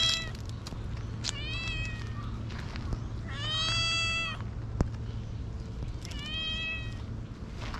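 Brown-tabby-and-white cat meowing close up, repeatedly calling toward a person: the tail of one meow at the start, then three more about two seconds apart, the longest and loudest in the middle.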